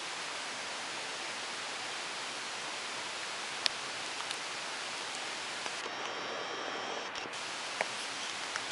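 Steady hiss of rain falling, with a few faint ticks.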